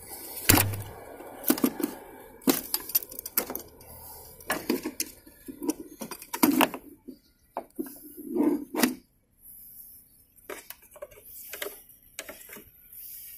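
Irregular clicks, knocks and scrapes of hard plastic and metal parts being handled at a car battery: the Cadillac SRX's positive battery-terminal fuse block being worked loose and lifted off the battery top. One louder rubbing clunk comes a bit past halfway.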